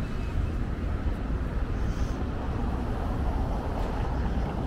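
Steady low outdoor rumble with no distinct events, heaviest in the deep bass.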